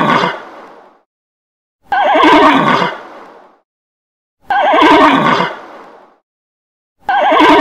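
Horse whinnying, the same loud, quavering whinny repeated about every two and a half seconds: one trails off at the start, two full ones follow, and a fourth begins near the end.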